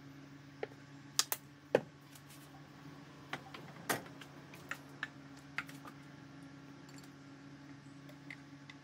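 Scattered light clicks and taps of a sauce bottle and dishes while plates of pork cutlet are sauced, over a steady low hum. The clicks are uneven, with the sharpest about 1 to 2 seconds in and fewer after about 6 seconds.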